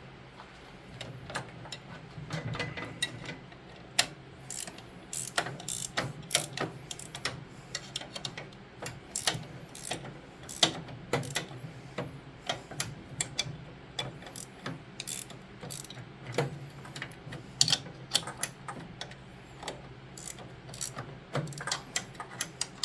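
Ratchet wrench clicking in short, irregular runs as bolts on a snowblower's friction wheel are tightened down.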